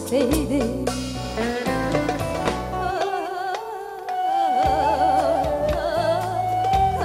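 A woman singing live with band accompaniment, her voice moving through a melody and then holding one long note with vibrato in the second half; the bass drops out for a moment about three seconds in.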